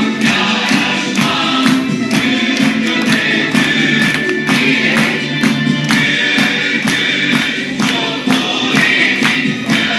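Song played over a sound system: group singing over a steady beat.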